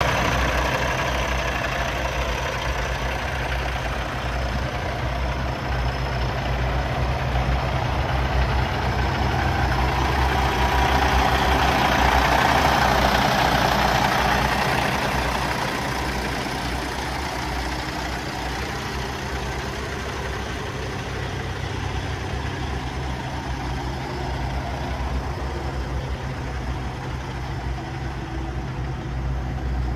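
Kenworth T680 semi truck's diesel engine idling steadily, with a low, even hum; it grows louder near the middle, where the open engine bay is closest, and eases off again.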